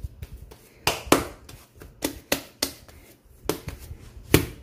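Pandesal bread dough being kneaded by hand on a silicone baking mat: about eight irregular slaps and pats as the dough is pressed and turned.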